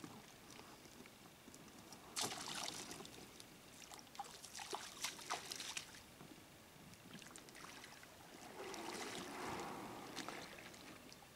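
Water splashing and sloshing in the shallows as a person climbs out of an inflatable boat. Near the end comes a longer scraping rustle as the boat is dragged up onto the bank.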